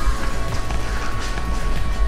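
Background music with a long held melody note over a low bass pulse.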